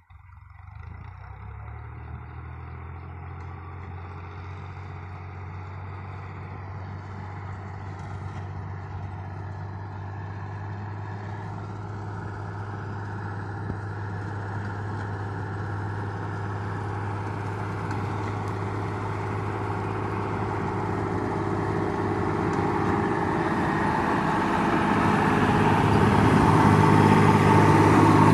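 Diesel tractor engine running steadily under load as it drives a front-mounted reaper through standing wheat. It grows steadily louder as the tractor approaches and passes close by near the end.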